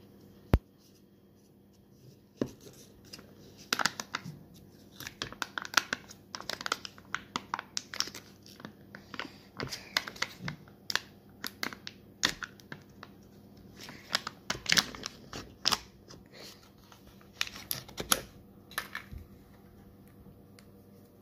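Plastic pudding cup being opened: a sharp click about half a second in as the snap-on plastic cover comes off, then the foil seal peeled off the rim with irregular crackling and crinkling.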